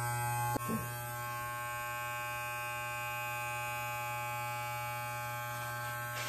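Corded electric hair clipper running with a steady buzz as it cuts short hair, with a brief click about half a second in.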